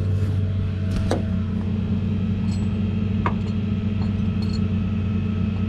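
A vehicle engine idling steadily, with a few light clicks and taps over it.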